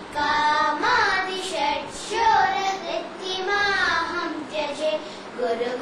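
A girl and a boy singing a devotional song together in young children's voices, the melody moving in short held notes and glides.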